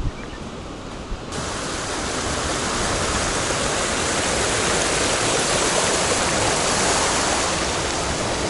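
Loud, steady rush of water, cutting in suddenly about a second in and stopping suddenly at the end.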